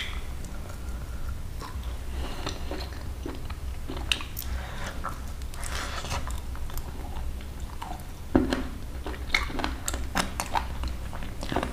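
A person chewing and biting pieces of dry-roasted (bhunja) desi chicken, close to a clip-on microphone: irregular wet mouth clicks and chewing sounds, with a few louder bites from about eight seconds in.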